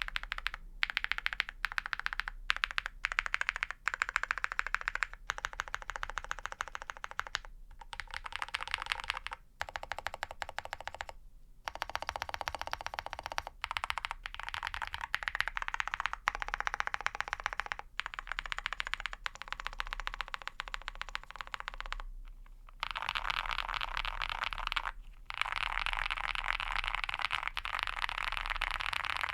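Fast typing on a custom mechanical keyboard with lubed and filmed Ca Phe Sua Da linear switches in a POM plate, under PBT keycaps: a dense, even patter of keystrokes broken by a few brief pauses. It runs quicker and more continuous near the end.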